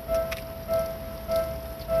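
Japanese railway level-crossing warning bell ringing: an electronic two-tone ding repeating a little under twice a second, signalling that a train is approaching and the crossing is closed. A low rumble of road traffic underneath.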